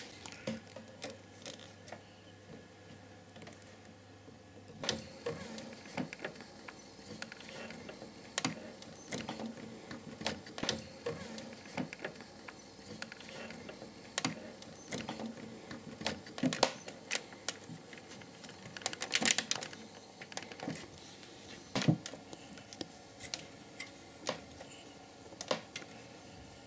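Irregular clicks, taps and knocks from handling computer hardware, as a new PC power supply and its modular cables are fitted in place.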